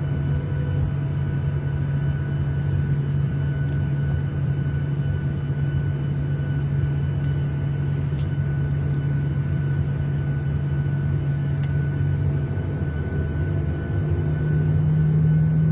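Steady airliner cabin drone: jet engine hum and rushing air, with two faint clicks partway through. The low hum steps slightly higher and louder near the end.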